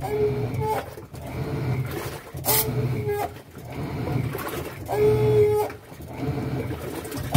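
Washing machine groaning: a squealing moan from the 'copa' at the tub that comes back roughly every two and a half seconds, over a low hum. The repairman takes it for dryness in need of lubrication.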